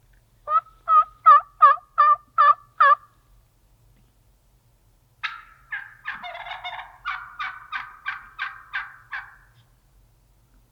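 Merriam's wild turkey hen gobbling: first a run of seven evenly spaced calls, then about two seconds later a longer rattling gobble that breaks into another string of evenly spaced notes. Gobbling is normally the male's call, so a hen gobbling is unusual.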